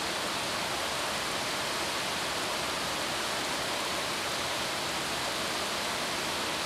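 A steady, even hiss with nothing else in it, the constant background noise of the room and recording between spoken sentences.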